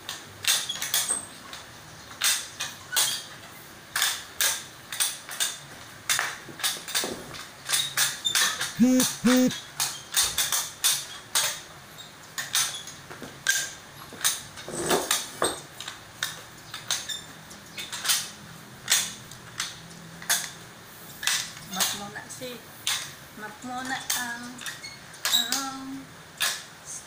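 Irregular sharp clacks and knocks on a tiled floor, about one or two a second, from mopping with a flat mop and shifting metal-framed chairs.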